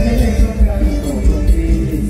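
Mor lam band music: an instrumental passage with a steady, driving beat.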